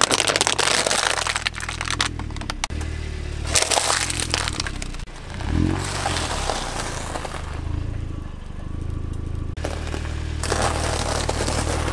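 Car tyre rolling over and crushing a plastic water bottle, then toasted rusk slices and small crunchy bread sticks: several loud spells of crackling and crunching. A steady low engine hum runs underneath.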